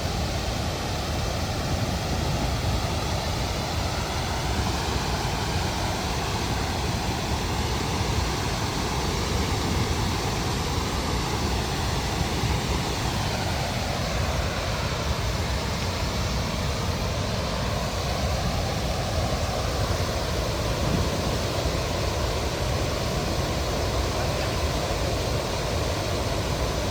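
Steady roar of Paterson's Great Falls, the Passaic River pouring over the falls, heard as an unbroken rushing hiss.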